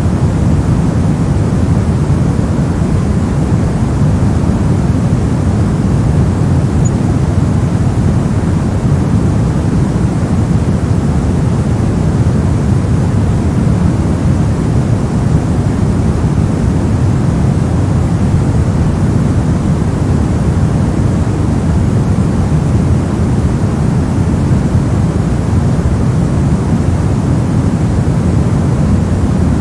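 A steady, unchanging noise track sold as white noise, with its weight in the low end so it sounds like a deep, even hiss. There are no breaks or events.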